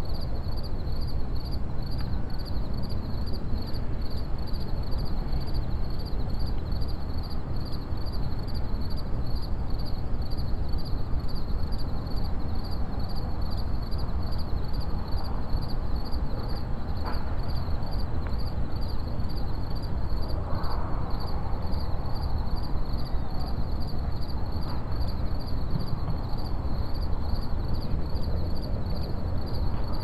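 Night insects chirping in a steady, evenly pulsing rhythm over a low steady rumble.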